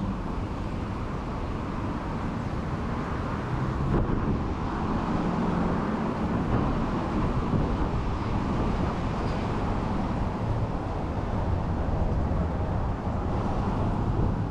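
Steady rumble of street traffic with no distinct events.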